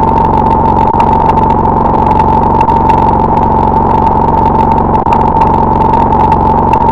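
Loud, distorted electronic drone: one steady high tone held without change over a dense buzzing rumble, with fast faint crackling on top.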